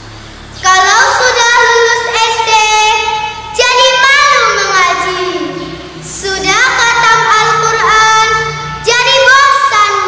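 A young girl singing solo: four phrases of long held notes with sliding pitch, each starting loud and tapering off.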